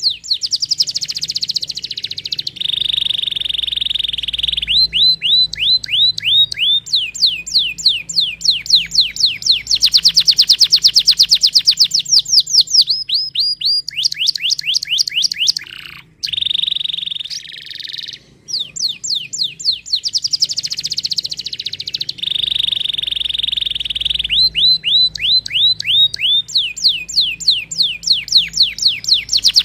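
Domestic canary singing: fast trills of repeated falling notes alternating with steady held high tones.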